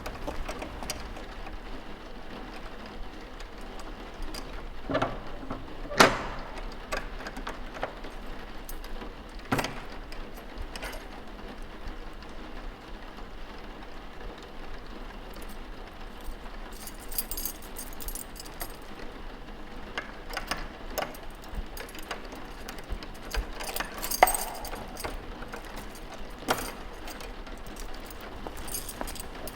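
Steady rain with scattered library noises over it: small clicks, knocks and thuds of things being handled and moved. Two sharper knocks stand out, one about six seconds in and another later on.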